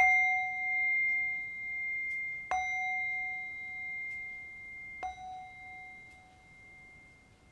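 A chime struck three times, about two and a half seconds apart; each stroke rings on with a clear high tone and fades slowly, the first the loudest.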